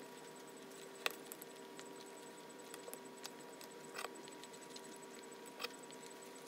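A few faint, scattered clicks of a metal fork against a dish, over quiet room tone with a faint steady hum.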